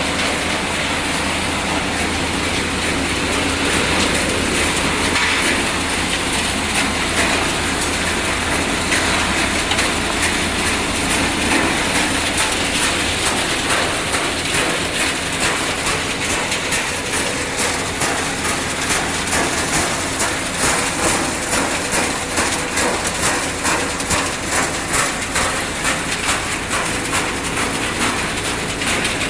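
Machinery of a refrigerator dismantling and recycling line running: a steady, loud mechanical clatter full of rapid rattling clicks, which settles into an even rhythm about halfway through.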